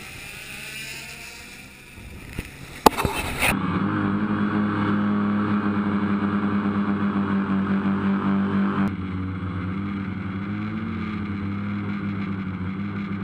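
Wind and water hiss with a sharp knock, then, about three and a half seconds in, a motorboat's engine running steadily.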